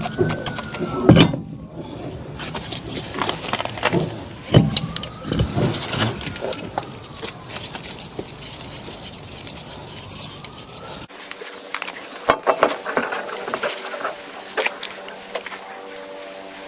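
Scattered metallic clinks and knocks as a spare wheel is fitted onto the car's hub and its wheel nuts are put on. Music comes in near the end.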